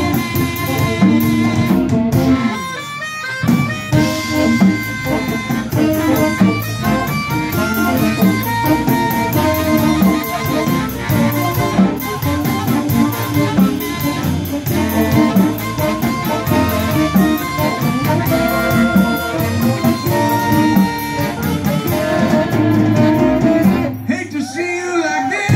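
Live blues band playing an instrumental passage: harmonica over electric guitars, bass, drums and saxophones, with the band dropping out for a moment near the end.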